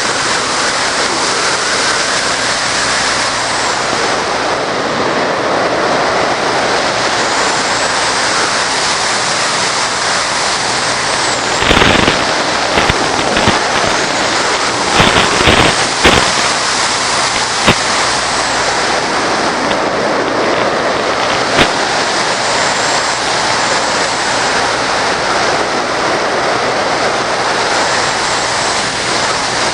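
Steady rushing noise from a Bixler model plane in flight, wind and electric motor as heard on the FPV video link's audio, with faint rising and falling motor whine. A run of sharp crackles and pops breaks in around the middle, typical of interference on the 5.8 GHz downlink.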